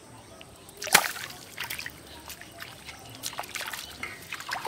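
Shallow pond water splashing and trickling as a small hooked fish is pulled out on a hand line, with one sharp, loud splash about a second in, then several smaller splashes.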